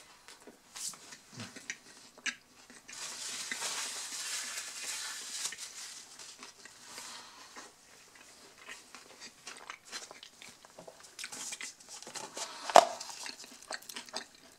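Close-up chewing and biting of a person eating a sandwich, with small mouth clicks, and a soft hiss about three to six seconds in. One sharp click near the end, as the plastic lid comes off the paper drink cup.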